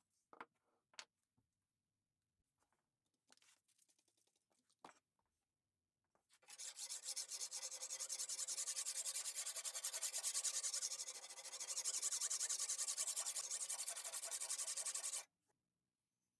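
A few light knocks and handling clatter, then a sharpening stone rubbed rapidly along the edge of a steel sickle blade: a steady, rasping scrape for about nine seconds that stops abruptly.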